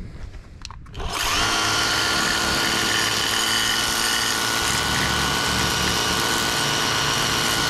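Ryobi 40V 600 PSI cordless handheld pressure washer switched on in turbo mode about a second in, drawing water through a suction hose from a bucket. Its pump motor whines briefly up to speed, then runs steadily with the hiss of its spray.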